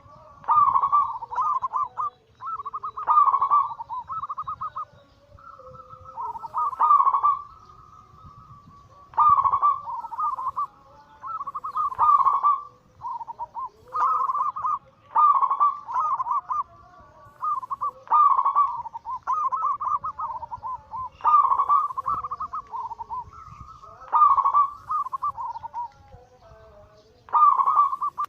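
Zebra doves (perkutut) cooing their anggungan song: trilled, bubbling coo phrases repeated every two to three seconds, with some phrases overlapping.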